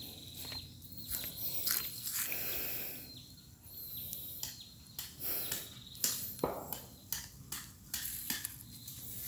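Footsteps and rustling outdoors, with irregular clicks and crackles close to the microphone.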